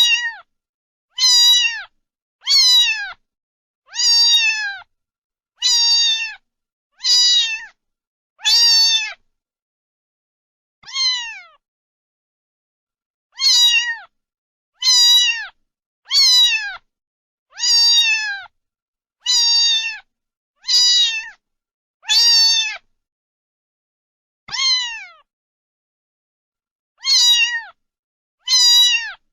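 Domestic cat meowing over and over, about one meow every second and a half. Each meow is short and drops in pitch, with dead silence between them and a few longer pauses.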